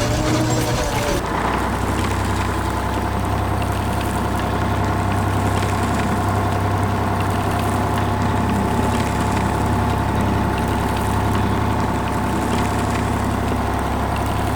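A construction-vehicle engine sound effect, idling steadily with a constant low hum.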